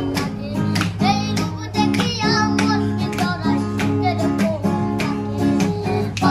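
A song: a singing voice with vibrato over strummed guitar and a steady beat.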